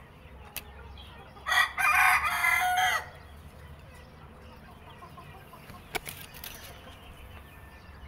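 A rooster crowing once, about a second and a half long, starting about a second and a half in and trailing off at the end of the call.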